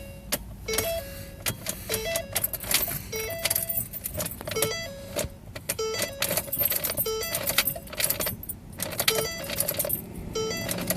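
Rapid, irregular clicking and chattering from a 2009 Ford Focus that will not start, over a short pattern of electronic tones that repeats about once a second.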